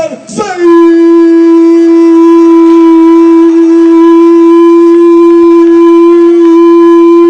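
A horn blown in one long, very loud note held steady for about seven seconds, its pitch dipping slightly as it starts and then staying flat, drowning out the crowd.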